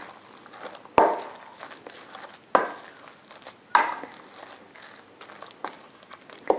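Wooden spoon stirring a wet mixture of grated raw potato, chopped onion and egg in a stainless steel bowl, with three louder strokes about a second, two and a half and almost four seconds in.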